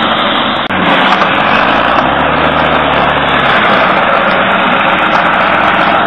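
Almond tree shaker machine running loud and steady as it shakes a tree. A deeper engine note swells in for a second or so about two seconds in.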